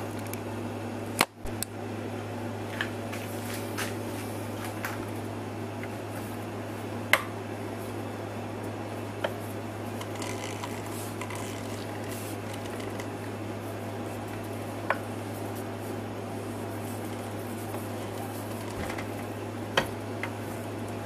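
A steady low hum, with a few sharp light clicks scattered through it.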